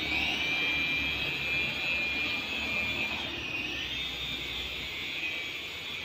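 Toy 3.5-channel RC helicopter flying, its small electric motors and rotors giving a steady high whine that starts up at once. The pitch drops slightly about three and a half seconds in.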